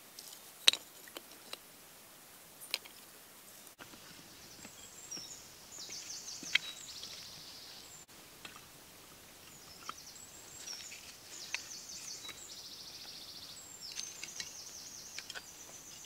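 Split oak pieces knocking now and then as they are laid on a fire stack, the loudest knock just under a second in. From about five seconds in, small birds sing high, rapid trilled phrases.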